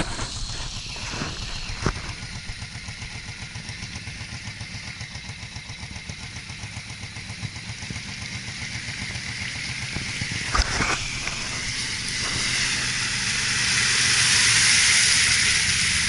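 ATV engines running, with a Can-Am 1000 quad's V-twin driving through a water-filled rut. It grows steadily louder over the second half as it comes close, with the rush of water sprayed up by its tyres. A couple of sharp knocks, the loudest about ten and a half seconds in.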